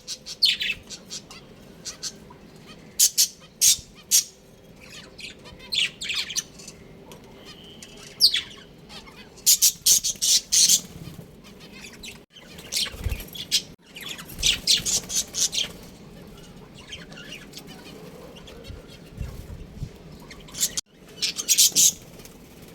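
Budgerigars chirping: clusters of quick, high chirps with short quieter gaps between them, loudest about eight to ten seconds in and again near the end.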